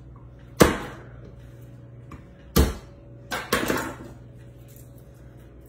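Two sharp whacks on a wooden cutting board about two seconds apart: a chef's knife striking garlic cloves to crush them for peeling. A short cluster of smaller knocks and rustles follows about three and a half seconds in.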